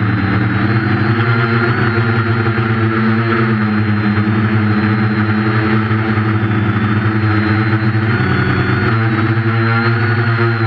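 Brushless motors and 8.5-inch propellers of a quadcopter, buzzing steadily in flight as heard from the onboard camera. The pitch shifts with the throttle, most clearly a brief rise about eight seconds in that falls back a second later.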